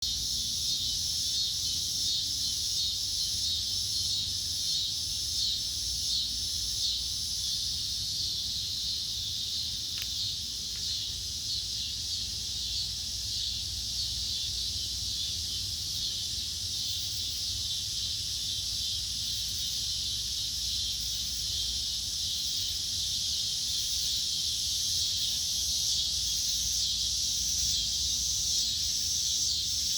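Dusk insect chorus: a dense, steady high-pitched chirring, with a higher layer pulsing about once a second in the first several seconds, over a low rumble.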